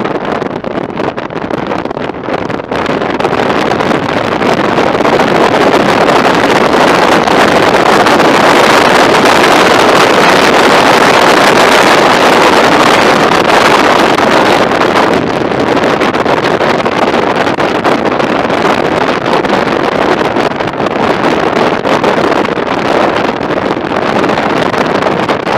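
Wind rushing over the microphone of a camera mounted on a Honda ST1300 touring motorcycle at riding speed, mixed with the bike's running and road noise. The rush grows louder about four seconds in and eases a little after about fifteen seconds.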